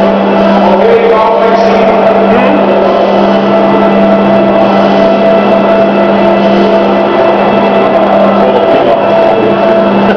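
Electric drive motors of mobile railway column lifts running under a raised S-Bahn car, giving a loud, steady hum with higher whining tones over it.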